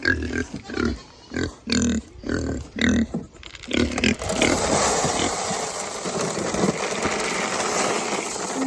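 A pig grunting in a quick series of short grunts. About four seconds in, a steady rushing noise takes over.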